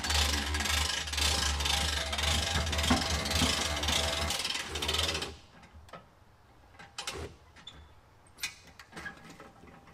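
Hand-cranked boat trailer winch ratcheting, its pawl clicking rapidly as it pulls a jet ski up onto the trailer. The cranking stops about five seconds in, followed by a few single clicks.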